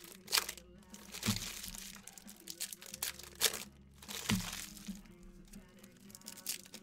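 Foil trading-card pack wrappers crinkling and tearing as hands open them, in a run of short, sharp crackles.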